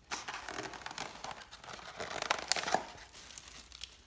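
Thin plastic carry-out bag crinkling and rustling as it is handled, with a styrofoam clamshell takeout box pulled from it and its lid opened. The crackling is sharpest about two and a half seconds in and thins out near the end.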